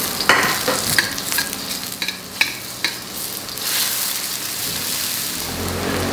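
Sliced shallots sizzling in hot oil in a stainless steel wok, being sautéed until fragrant. A metal wok spatula scrapes and clinks against the pan several times as they are stirred, mostly in the first three seconds.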